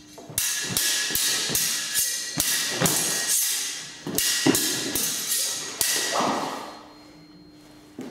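Smallsword blades clashing in a rapid choreographed stage-fight exchange, about a dozen sharp metallic strikes, each ringing briefly, mixed with shoes thudding on a wooden floor. The exchange stops near the end.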